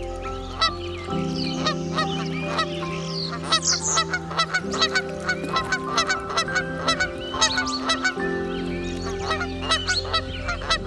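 Fowl calling, many short sharp calls in quick succession, over soft background music of sustained chords that change every few seconds.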